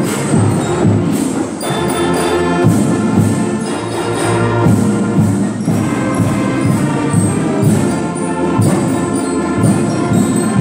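School concert band playing: clarinets, saxophones and brass holding notes over a steady drum beat.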